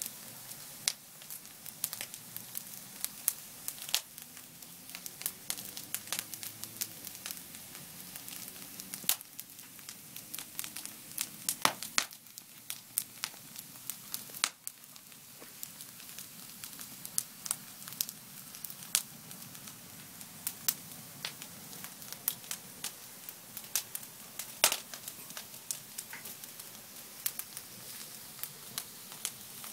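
Wood fire crackling, with sharp pops at irregular intervals over a soft steady hiss.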